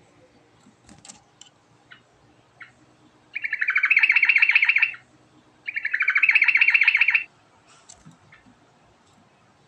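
Yellow-vented bulbul singing: two rapid trilled phrases of about a second and a half each, about three and a half and five and a half seconds in, with faint short chips in between.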